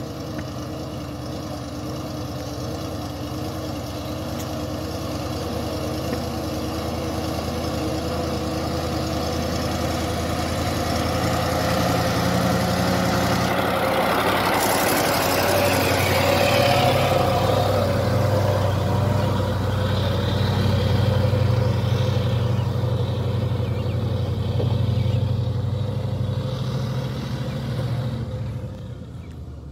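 Fuso Fighter diesel truck, loaded with oil palm fruit, pulling up a dirt incline under load. Its engine grows louder as it approaches, is loudest as it passes close by about halfway through, then fades as it drives away.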